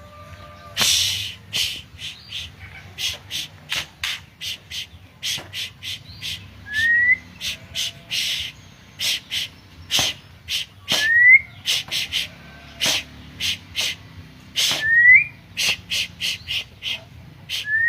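White-rumped shama singing a rapid run of short, sharp notes, with a short rising whistle about every four seconds.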